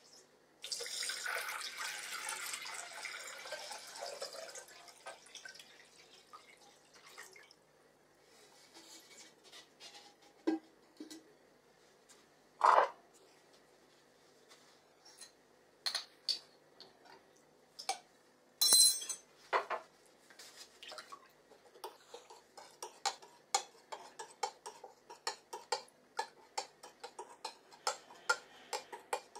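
Tap water poured from a bottle into a glass jar for about four seconds, then scattered knocks and one ringing glass clink as the salt jar and spoon are handled. Through the last several seconds a spoon stirs the salt water, clinking quickly against the glass jar.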